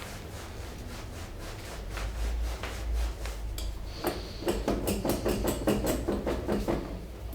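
Hands rubbing over a person's body, then from about four seconds in, a fast even run of percussive massage strikes on the body, about five a second.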